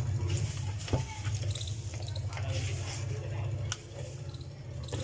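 Mixer-grinder motor running with a steady low hum, with scattered sharp clicks and a few faint high squeaks.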